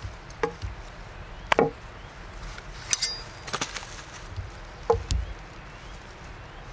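A kitchen knife in a leather sheath knocking on a thick wooden cutting board as the blade is drawn out and handled: a handful of sharp wooden knocks, the loudest about one and a half and five seconds in, with a brief metallic ring of the blade about three seconds in.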